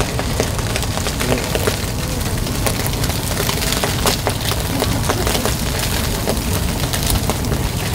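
Skewered eel fillets sizzling over a glowing charcoal grill, with many irregular sharp pops and crackles from the coals and dripping fat over a steady low rumble.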